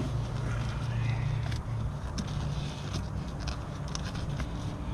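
Carbon fiber e-brake handle being forced onto a Subaru WRX's e-brake lever: scattered light clicks and scraping over a steady low hum, with a single knock at the end.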